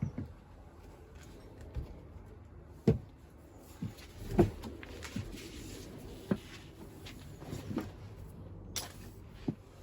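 Irregular knocks and clicks of hard objects being handled, about half a dozen, the loudest about four and a half seconds in.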